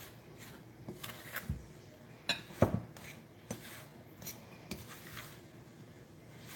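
A fork mixing thick, sticky shortcake dough in a bowl: irregular scrapes and clinks of the fork against the bowl, with a louder knock about two and a half seconds in.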